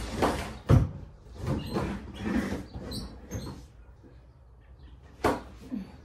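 Household knocks and bumps: a sharp knock about a second in and another near the end, with scuffling, shuffling noises between them.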